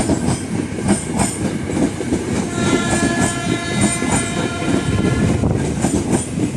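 Ex-Tokyo Metro 6000 series electric commuter train running past close by, its wheels rumbling and clacking over rail joints. A train horn sounds about two and a half seconds in and holds for nearly three seconds.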